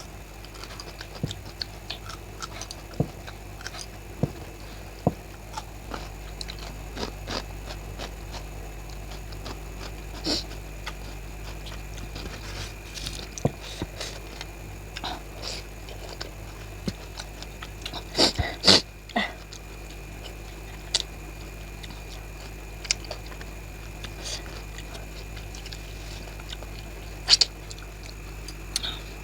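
Close-miked eating: irregular chewing, lip smacks and wet mouth clicks from someone eating boiled eggs and raw green chillies, with a louder cluster of mouth sounds about 18 seconds in, over a steady background hum.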